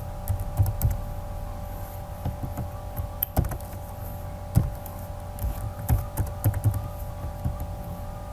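Computer keyboard typing: irregular keystroke clicks, some louder than others, over a steady hum.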